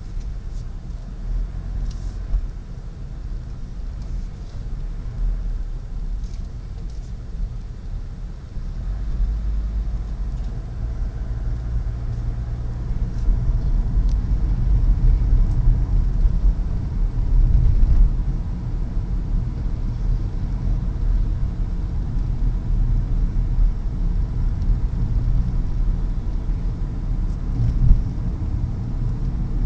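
Low, steady road and engine rumble of a car driving, heard from inside the cabin. It grows louder about a third of the way in, as if picking up speed.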